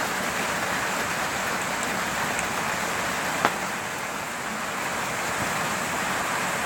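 Steady fizzing hiss of a styrofoam cup dissolving in acetone nail polish remover, with a single sharp click about three and a half seconds in.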